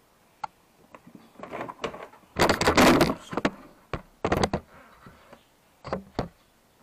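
Hard plastic clattering, knocking and scraping as a Honda Click 150 scooter's under-seat storage box is worked loose in its frame. It comes in several bursts, the loudest about two and a half to three and a half seconds in, with a few sharp clicks near the end.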